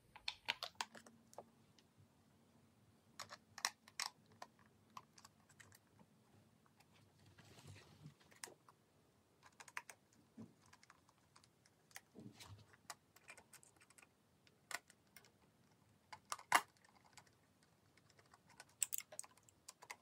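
Sparse light clicks and taps of plastic and metal as a thermostat backplate is handled on a wall-mounted switch frame and its screws are driven with a hand screwdriver.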